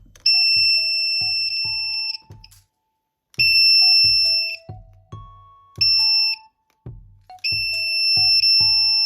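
Piezo buzzer of a homemade door alarm sounding a steady high-pitched tone in four bursts: two seconds, one second, half a second, then nearly two seconds. Background music with a steady beat plays underneath.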